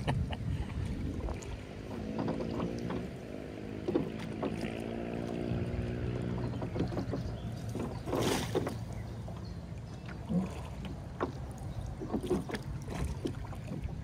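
Rowboat being rowed with wooden oars: scattered knocks and clicks of the oars in their oarlocks and their blades dipping in the water, over a steady low rumble, with a louder stroke about eight seconds in.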